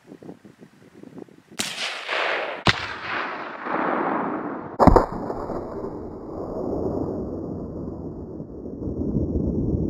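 Gunshots from a 7mm Remington Magnum rifle and a 12-gauge shotgun firing slugs at filled 2-litre pop bottles: a loud report about a second and a half in, a sharp crack a second later, and the loudest crack about five seconds in. A steady low noise follows.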